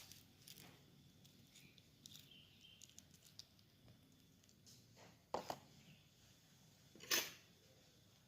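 Near silence with a few faint, short clicks, the two clearest about five and seven seconds in.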